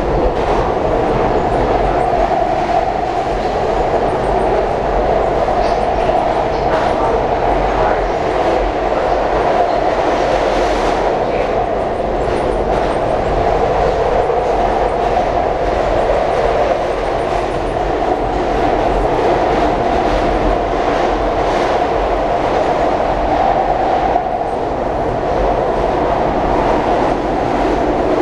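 Steady running noise heard from inside a moving SEPTA Market-Frankford Line subway-elevated car (an M-4 car), from its wheels on the rails, with faint repeated clicks over the rail joints.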